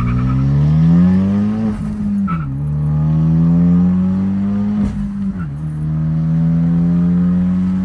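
Hyundai Genesis Coupe engine accelerating hard from a launch, its pitch rising through each gear. The pitch drops sharply at two upshifts, about two and a half and five and a half seconds in.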